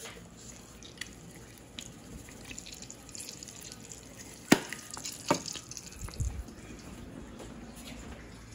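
An egg frying in a glass skillet, sizzling with a steady crackle of small pops. Two louder sharp pops come about four and a half and five seconds in.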